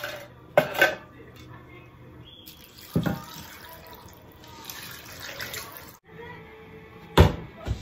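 Water poured from a plastic measuring jug onto simmering vegetables in a frying pan, a splashing pour lasting a couple of seconds, after a knock of a jug being put down. Near the end two loud knocks as the pan is handled.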